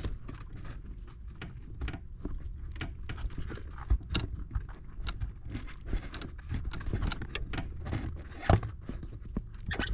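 Hands working under a car's dashboard pushing a rubber firewall grommet out: irregular small clicks, rattles and rubbing, with a few louder knocks.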